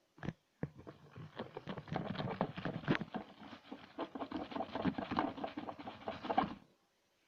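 White-glue slime being worked: a click or two, then about six seconds of dense, irregular sticky crackling that stops suddenly near the end.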